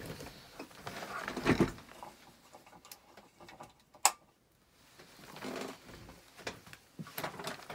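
Workbench handling noises: rustling and light knocks, with a rustly patch about a second and a half in and one sharp click just after four seconds.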